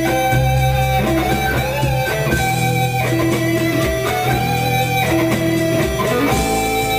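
Background music led by guitar, with sustained chords that change about every second or so over a steady low bass.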